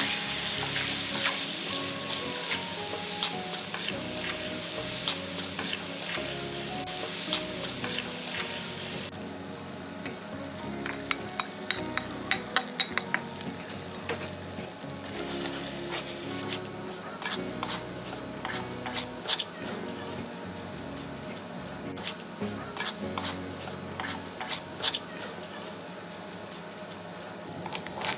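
Pieces of eel frying in hot oil in an aluminium wok, stirred with a metal spatula. The sizzle is loud at first and drops after about nine seconds, leaving quieter frying with frequent clicks and scrapes of the spatula against the pan.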